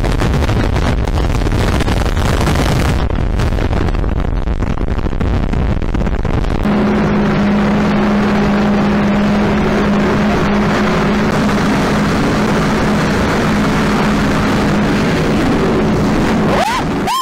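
Jet ski running at speed, with wind and spray rushing over the camera microphone; about seven seconds in, a steady engine drone comes through clearly over the rush and holds an even pitch. A short rising-and-falling tone sounds near the end.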